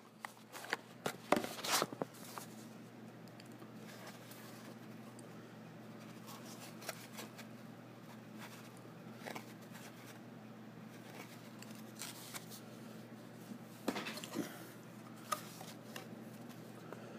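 Handling noise from small paper cards held and moved close to the phone: a cluster of sharp clicks and short rustles in the first two seconds, scattered clicks later, over a steady low hum.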